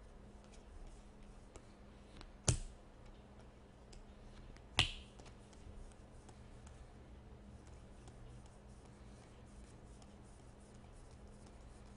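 Trading cards being thumbed through by hand, the card edges making faint scattered clicks, with two sharp snaps about two and a half and five seconds in.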